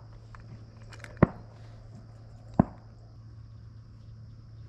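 Two sharp shotgun shots about a second and a half apart, each a single short crack.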